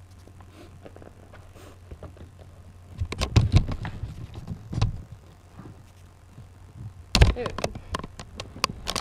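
A low steady hum, then from about three seconds in a run of clicks, knocks and rustling with several loud thumps: close handling or bumping noises.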